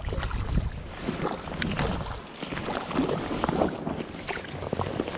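Creek water splashing and sloshing in irregular strokes as a small hooked trout is reeled in and landed, with wind rumbling on the microphone.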